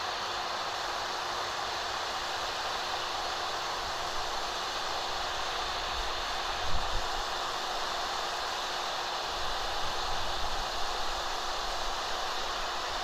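Electric heat gun running steadily, its fan blowing hot air in an even rush with a faint steady hum, while it melts an HDPE welding rod into the seam. A few soft low bumps come about halfway through and again around ten seconds in.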